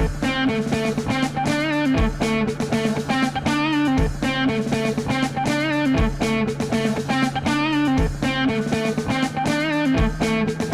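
Background rock music with electric guitar over a steady beat, a low bass hit about every two seconds.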